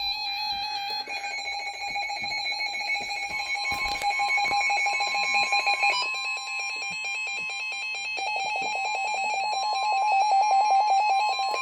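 Weather radio receivers sounding their alert alarms: steady and rapidly pulsing electronic beeps at several pitches. About three and a half seconds in, NOAA Weather Radio's long steady warning alarm tone joins them, signalling that a new warning is about to be read.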